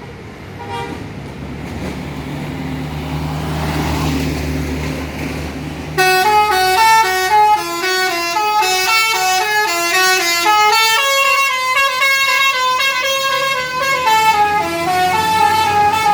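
Tour bus engine running and growing louder, then about six seconds in a basuri telolet horn starts playing a quick melody of stepped notes, several tones sounding together.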